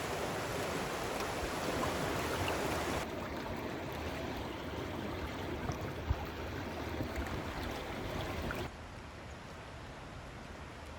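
River water flowing over shallows, a steady rushing noise that drops abruptly in level twice, about three seconds in and near the end. There is a single brief knock about six seconds in.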